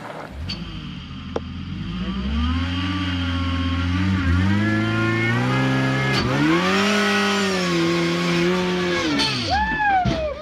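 Supercharged Suzuki Samurai engine revving up and down under load as it crawls over rocks, its pitch rising and falling with the throttle and a whine above it. Near the end it revs up briefly and drops off sharply.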